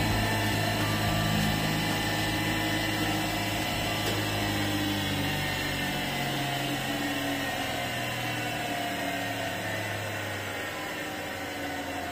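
Surface grinder's motor and grinding wheel spinning with a steady hum, slowly getting quieter and lower in pitch.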